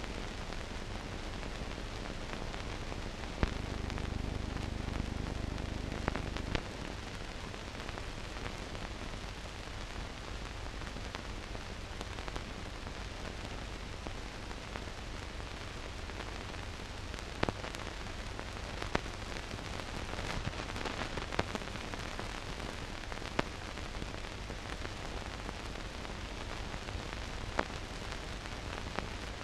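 Steady hiss with scattered sharp clicks: the background noise of a silent newsreel film transfer that has no soundtrack. A low rumble comes in about three and a half seconds in and stops about three seconds later.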